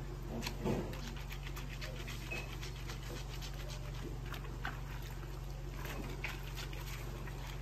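Clothes being scrubbed by hand in a plastic basin of soapy water: irregular wet splashes and rubbing of fabric, a stronger splash just under a second in, over a steady low hum.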